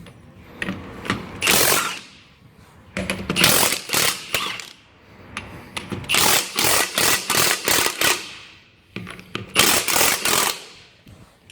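Milwaukee M18 Fuel high-torque 1/2-inch cordless impact wrench hammering on 32 mm truck wheel nuts, in about five separate trigger bursts of rapid rattling impacts with short pauses between them, as it breaks the old left-hand-thread nuts loose.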